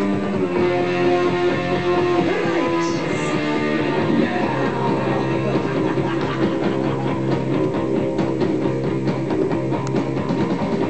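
Rock music on electric guitar: chords strummed in a steady rhythm over a bass line, without singing.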